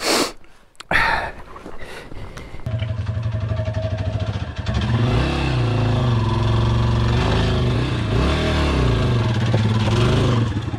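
Yamaha XT250's single-cylinder four-stroke engine, coming in about two and a half seconds in and revving up under load about five seconds in as the bike climbs a rock ledge. Its revs dip and rise twice.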